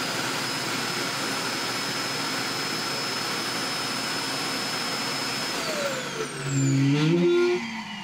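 Roomba i4+ Clean Base self-emptying: its evacuation suction motor runs with a steady rushing noise and a high whine, pulling debris out of the robot's bin into the base's bag. About five and a half seconds in, the motor spins down with falling whines, and a louder low hum rises briefly near the end.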